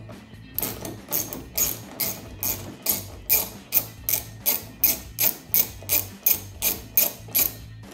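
Hand ratchet wrench with a socket on an extension loosening a spoiler mounting nut: quick repeated bursts of ratchet clicks, about three a second, starting about half a second in and stopping near the end.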